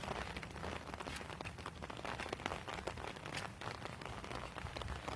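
Light rain pattering, many small irregular drop ticks close by, over a low rumble.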